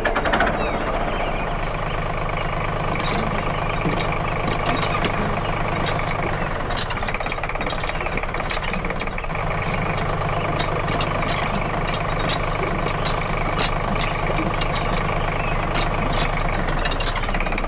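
Steady engine-like running sound from toy construction vehicles, with many irregular ticks. The low hum drops out for a few seconds about a third of the way in, then returns.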